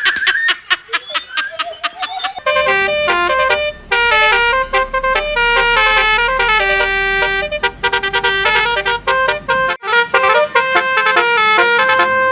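Multi-tone Basuri 'telolet' bus horn playing a stepping melody, several notes sounding together and changing quickly, starting about two seconds in after a rapid even ticking.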